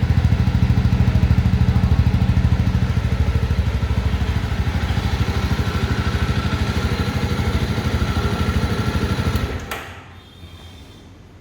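Single-cylinder motorcycle engine running steadily with an even beat. About nine and a half seconds in it drops away sharply to a much quieter background.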